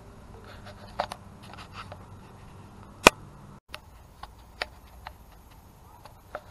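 Scattered light clicks and knocks, with one sharp click about three seconds in; the sound drops out for a moment just after it.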